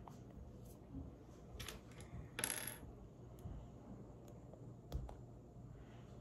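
Plastic Lego pieces faintly clicking and clattering as they are handled, with scattered single clicks and a short rattle about two and a half seconds in.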